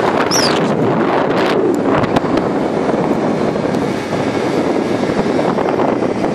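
Wind rushing over the microphone on a moving motor scooter, mixed with the scooter's engine running at a steady road speed.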